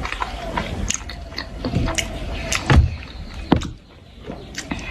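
Close-miked chewing and biting of jhol momos, dumplings in broth, with many small wet clicks and a few soft thumps, the strongest about three seconds in.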